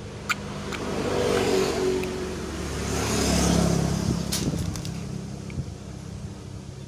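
A passing motor vehicle: engine hum and road noise swelling twice and fading, loudest about three and a half seconds in, with a few faint clicks.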